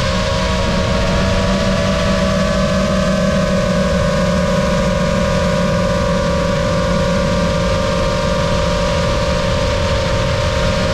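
5-inch FPV quadcopter's brushless motors and propellers whining at a steady pitch, with a low rushing noise underneath.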